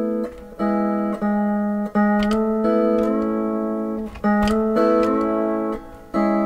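Pedal steel guitar chords ringing on open strings, struck several times. The left foot rolls between the A and B pedals to change the chord, so some notes slide up in pitch about three seconds in.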